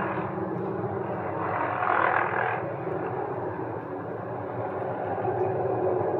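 Helicopter running as it hovers, a steady rotor and engine noise that swells briefly about two seconds in.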